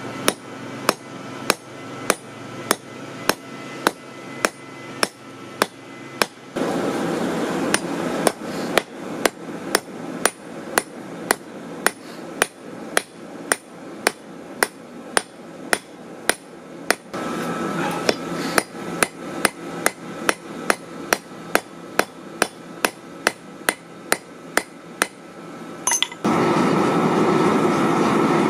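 Hand hammer striking a red-hot railroad spike on a steel anvil, about two to three ringing blows a second, drawing the spike out. About two seconds before the end the hammering stops and a steady rushing noise takes over, the air blast of the coal forge.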